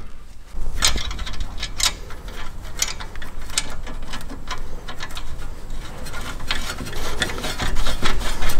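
Irregular metal clicks and scraping as a gloved hand turns the front tie rod and lines it up at the steering knuckle on a BMW E36's front suspension.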